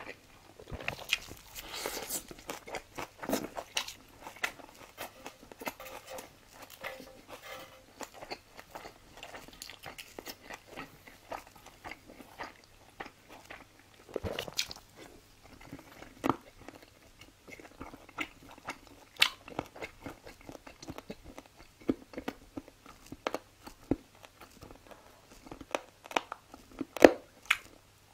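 Close-miked chewing and biting of food, wet mouth sounds with irregular crunchy bites and sharp clicks, louder ones about halfway through and near the end.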